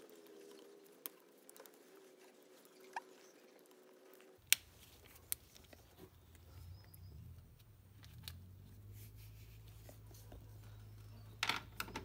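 Flat-blade screwdriver and gloved hands working at a plastic heater hose connector and its clamp ring: faint scraping and handling, with a few sharp clicks and a quick cluster of clicks near the end.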